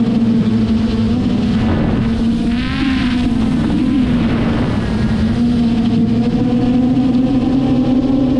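Traxxas Aton quadcopter drone in flight: a steady, loud motor and propeller hum, its pitch wobbling briefly about three seconds in as the motors change speed.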